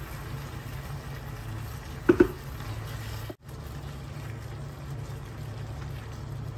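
Shrimp and vegetables sizzling in a frying pan over a steady low hum, with a wooden spoon knocking twice against the pan about two seconds in. The sound breaks off for a moment near the middle.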